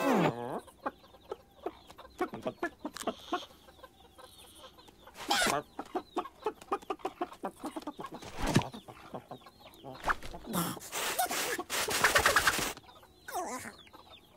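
Cartoon hen voice clucking in quick, short, closely spaced clucks, with a few louder squawks and a longer loud squawking outburst near the end.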